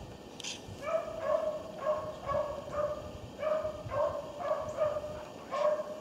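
Beagle baying in a steady run of short, pitched barks, about two a second, starting about a second in: the cry of a hound running a rabbit's scent trail.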